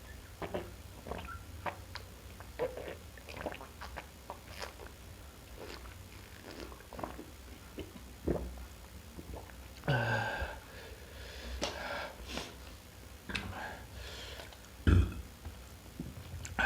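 Close-miked chewing and eating mouth sounds: many small wet clicks and smacks. A longer breathy noise comes about ten seconds in, and a short dull thump about fifteen seconds in.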